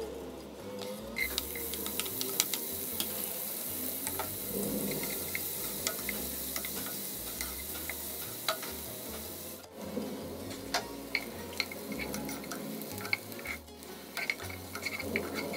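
Chopped onions sizzling in hot vegetable oil in a nonstick pot, stirred with a wooden spoon that scrapes and knocks against the pot in many short clicks. The sizzle starts suddenly about a second in.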